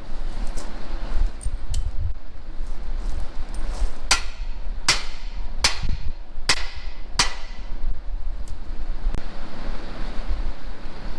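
A hammer striking steel five times in a row, about one blow every 0.8 s, each blow ringing briefly, starting about four seconds in. A steady low rumble runs underneath, with a few fainter taps before and after.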